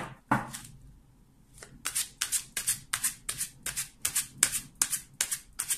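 A deck of Lenormand cards being shuffled by hand: a steady run of quick card swishes, about three a second, starting a second and a half in. Two sharp slaps of cards come right at the start.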